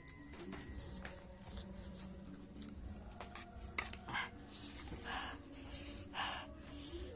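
Eating sounds from a person eating spicy noodles: a sharp clink of a utensil against the dish a little over halfway through, then several short, hissy mouth sounds.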